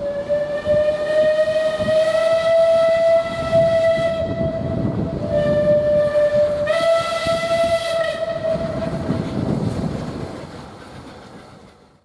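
Steam locomotive whistle: one long blast of about four seconds, then a second blast that steps up in pitch partway and dies away, over the low rumble of the approaching train. The sound fades out near the end.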